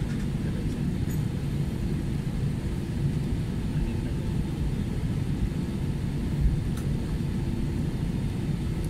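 Steady low rumble of cabin noise inside an Airbus A320-200 as it taxis, with a faint constant hum.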